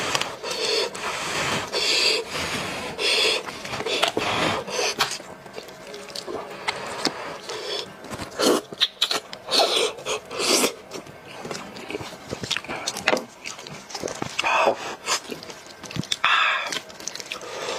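Close-miked eating sounds of a cooked sheep's head: meat pulled and torn from the bones by hand, then sucked, licked and chewed with wet mouth noises. Short bursts come about once a second at first, then irregular sharp clicks.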